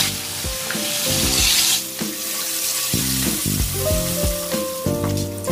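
Pieces of sea pomfret frying in hot oil in a pan, a steady sizzle, strongest in the first two seconds. The oil has a little wheat flour sprinkled in to keep the fish from spattering. Soft background music plays underneath.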